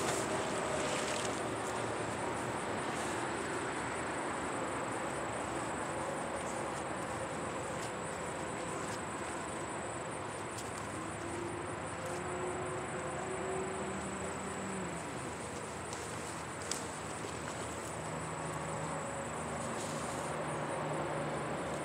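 Insects trilling in one steady high buzz over a steady outdoor background hum. A short splash right at the start as the thrown magnet lands in the water, and one sharp click about three-quarters of the way through.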